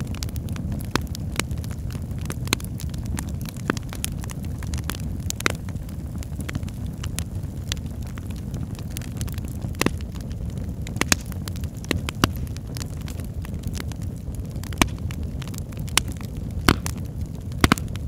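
Fireplace fire crackling: irregular sharp pops and snaps, a dozen or so, spaced unevenly over a steady low rumble of the flames. The loudest pops come near the end.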